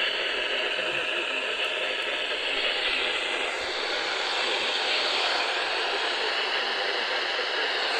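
Steady hiss and static from a weather radio receiver, with no voice or alert tones.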